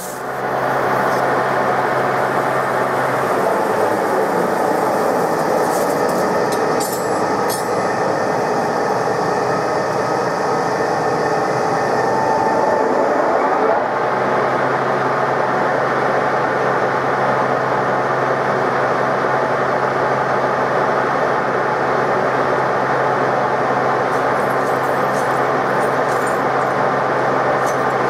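TOS SN63B metal lathe running steadily under power, its geared headstock and feed making a continuous mechanical noise with a low hum, while a carbide high-feed insert cuts the spinning wheel hub. The hum drops out for about ten seconds a few seconds in, then returns.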